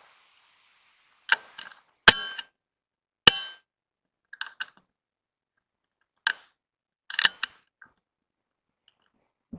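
Handling noise: a string of sharp clicks and knocks, some with a brief metallic ring, irregularly spaced, with dead quiet between them.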